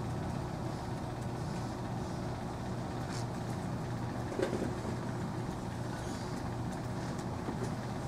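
Steady low room hum, typical of air conditioning or a projector fan, with a few faint clicks.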